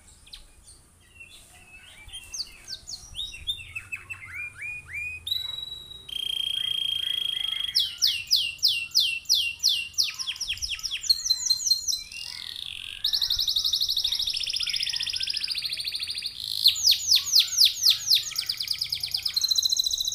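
Domestic canary singing a long, full song that starts softly and grows louder: phrases of fast repeated falling notes, broken by held rolling trills, a short one about six seconds in and a longer one of about three seconds in the middle.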